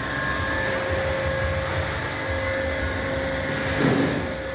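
Refrigeration machinery of an ice-making plant running: green refrigeration compressors and pumps giving a steady hum with a constant tone over a low rumble. Briefly louder near the end.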